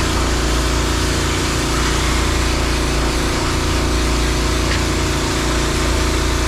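An engine running steadily, with a steady hiss over it.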